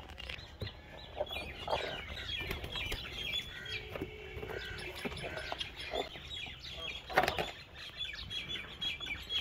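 Many small birds chirping continually with quick, high-pitched calls, and one brief, louder noise about seven seconds in.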